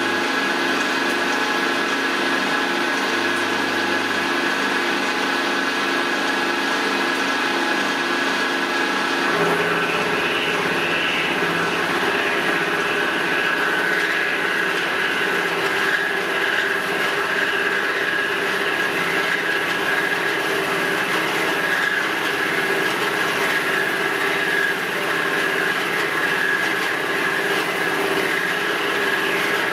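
Small milling machine running under power while its end mill takes a 2 mm cut on a metal disc, with coolant flowing. The sound is a steady machine hum of several tones, which grows fuller about nine seconds in as the cutter bites harder into the work.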